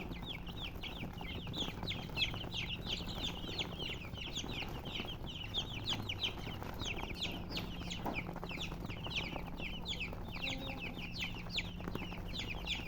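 Baby chicks peeping: many short, high cheeps that each slide down in pitch, overlapping in a dense, continuous chorus.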